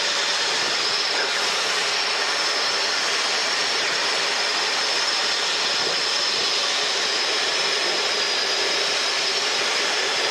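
Steady in-cabin noise of a Robinson light helicopter in cruise: engine and rotor drone with a thin, steady high whine.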